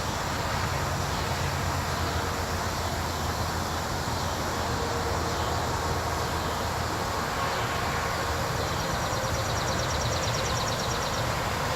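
Steady rushing background noise with a low hum underneath, and a faint, fast high-pitched pulsing near the end.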